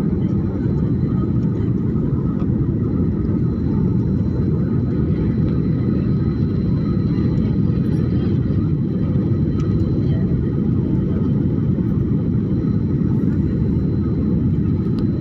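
Airliner cabin noise at a window seat: a steady, loud rumble of the jet engines and rushing air.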